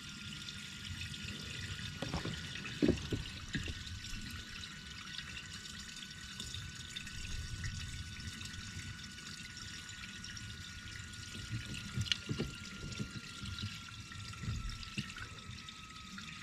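Fuel trickling slowly from a jerry can into a mini excavator's fuel tank, with a few light knocks. The pour is slow because the can's spout vent lets too little air in.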